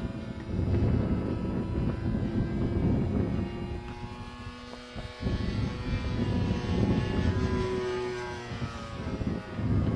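Propeller-driven Zero fighter flying overhead, its engine droning steadily from high up, over a heavy low rumble that swells and fades, with a brief dip about five seconds in.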